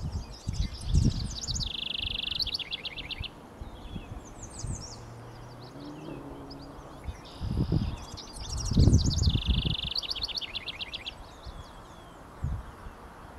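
House wren singing: two rapid, bubbling song phrases, the second starting about five and a half seconds in. Each starts with high notes and runs into a fast trill. Low rumbling bursts come in under the song.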